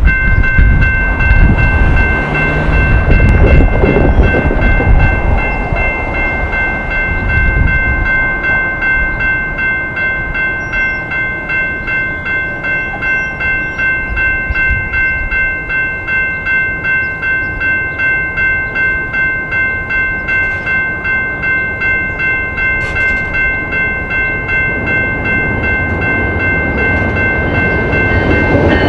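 Railroad crossing warning bell ringing steadily at about two strikes a second while the crossing signals are active, warning of an approaching train. Wind rumbles on the microphone for the first several seconds.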